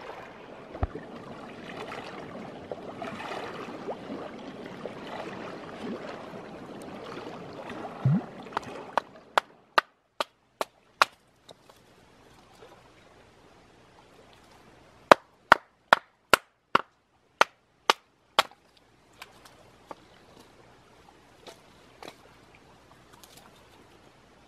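A steady rushing noise for the first nine seconds. Then sharp chopping strikes of a blade splitting kindling for a campfire: about six in quick succession, a pause, then about eight more, two to three a second, with a few lighter taps near the end.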